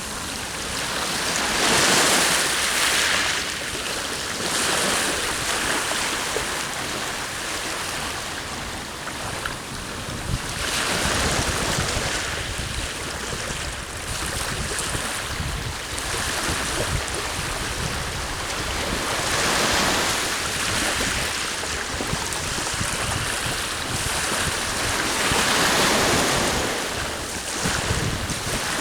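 Sea waves breaking and washing on the shore, swelling in a surge every several seconds, with wind blowing across the microphone.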